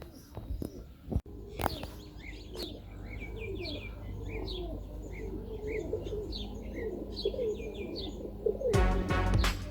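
Pigeons cooing, short rising-and-falling coos repeating over one another, with quick high chirps mixed in. A louder, noisier burst comes in near the end.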